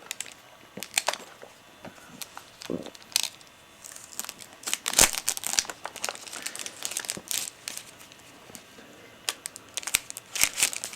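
Thin plastic shrink-wrap being torn and peeled off a video cassette box, crinkling and crackling in irregular bursts, busiest in the middle and again near the end.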